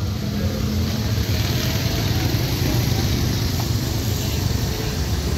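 Motorcycle and scooter engines running along the road, a steady low drone of street traffic.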